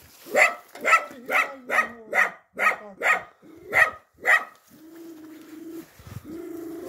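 Dog barking repeatedly, about two barks a second, stopping about four and a half seconds in; a steadier, lower drawn-out sound follows near the end.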